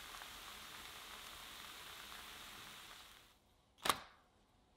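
Chocolate crepe batter sizzling softly in a square nonstick pan, a steady hiss that cuts off after about three seconds. Then, near the end, a single sharp tap or click.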